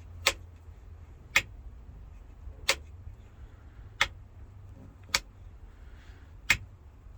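Triumph GT6 dome light switch being clicked on and off six times, about once a second, as the repaired switch is tested.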